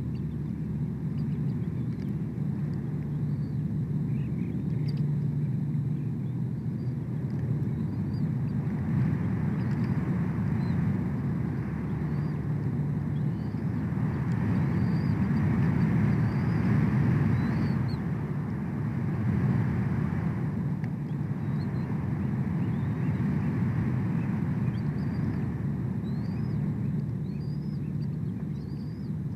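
A steady low rumble with a hiss that swells for several seconds about a third of the way in, and short faint high chirps of small birds scattered throughout.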